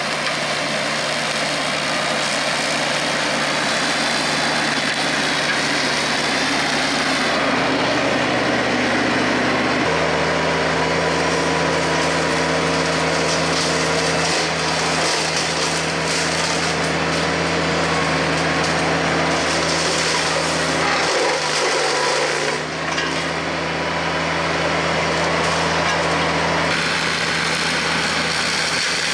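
TYM T474 tractor's diesel engine running steadily under load, with the Hardee Brush Tiger's hydraulic rotary cutter head spinning and chopping through grass and brush. The engine drone shifts abruptly in pitch several times.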